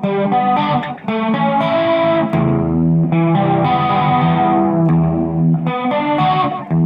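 Electric guitar strumming chords through effects, with distortion and chorus, each chord ringing out before the next is struck.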